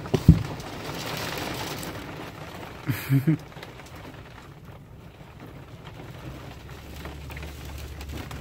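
Husky puppy playing with a toy: a couple of knocks near the start, rustling and chewing, then a short low grumble of three quick sounds about three seconds in.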